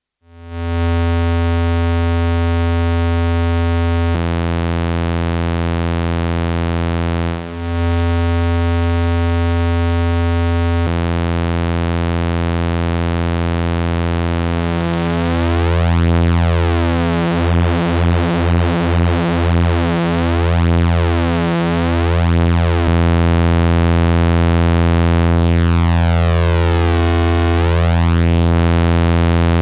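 Behringer Odyssey synthesizer holding one sustained low note. Its tone shifts several times, with a brief dip about seven seconds in, and in the middle it wavers and pulses for a while before settling again.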